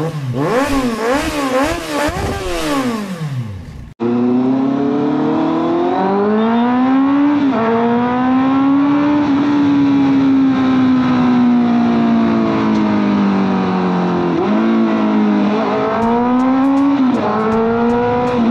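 Honda CBR650F inline-four engine pulling hard under throttle, its pitch climbing and then dropping sharply at each gear change, a few times over. Before it comes a short intro sound whose pitch wavers quickly up and down; it cuts off about four seconds in.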